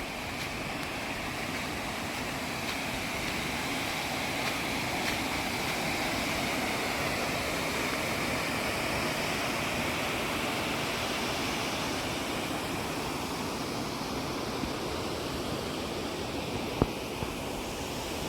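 Ettipotala waterfall rushing steadily, a continuous even roar of falling water whose flow comes from water released through the dam's spillway shutter. A single brief click near the end.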